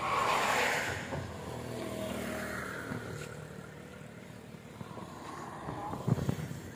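A pickup truck passes close by on the bridge road, its engine and tyre noise swelling over the first second and then fading. A second, fainter vehicle engine passes about two seconds in.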